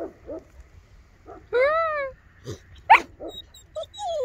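Two-month-old Bernese mountain dog puppies vocalizing at play over a teddy bear. There are short low growls, a drawn-out whine that rises and falls about one and a half seconds in, a sharp yelp about three seconds in, which is the loudest sound, and a falling whine at the end.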